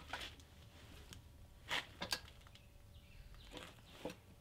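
A few faint, scattered clicks and knocks of hardware being handled while a minibike's kickstand is fitted.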